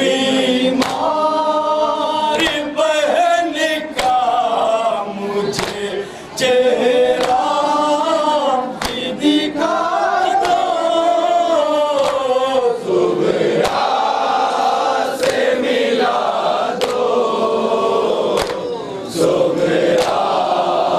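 Men chanting a Shia nauha lament together, lead reciters with the group joining in. Sharp slaps of hands on chests (matam) sound repeatedly through the chanting.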